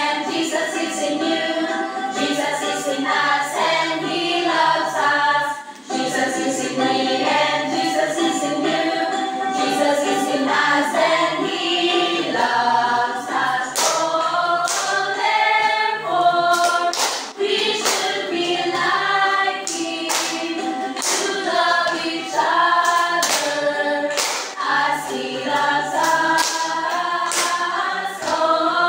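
A group of young voices singing a worship song together, unaccompanied, with sharp hand claps in places.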